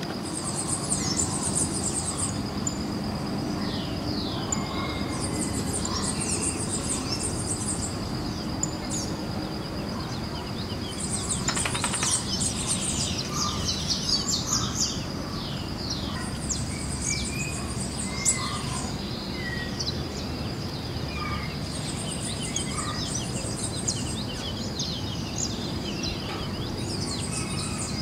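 Natural forest ambience: small birds chirping and calling, with bursts of high chirping returning about every five seconds, over a steady high insect drone and a low continuous background noise.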